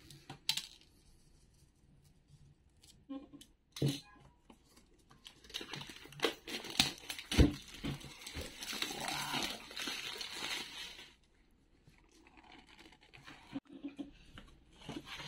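Plastic shrink-wrap being slit and torn off a toy box, crinkling for several seconds in the middle. Scattered taps and clicks of the box being handled, with one sharp knock about seven seconds in.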